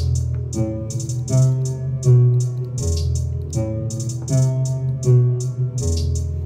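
A trap beat playing back from the producer's session: a looping plucked-string melody over deep 808 bass notes that come in about every three seconds, with regular high percussion hits on top.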